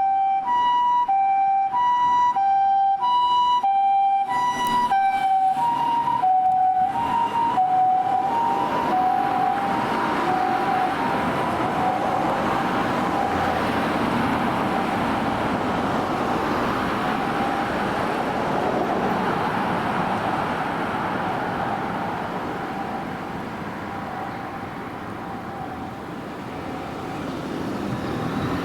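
Japanese ambulance two-tone siren sounding alternating high and low notes, each about half a second long. The notes drop slightly in pitch and fade away over about ten seconds as the ambulance moves off, leaving steady traffic noise.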